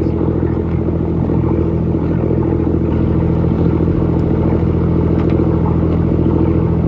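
Boat engine idling with a steady, even hum.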